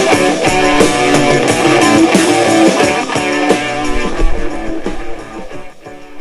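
Music led by guitar, with a steady beat, fading down about five seconds in.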